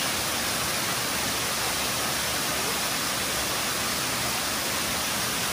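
Tall waterfall pouring down a rock face and breaking into spray: a steady, even rush of falling water.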